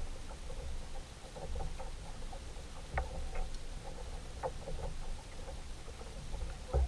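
Ambient sound aboard a fishing kayak on a lake, heard through a GoPro mic: a steady low rumble with scattered light clicks and taps, the sharpest about three seconds in.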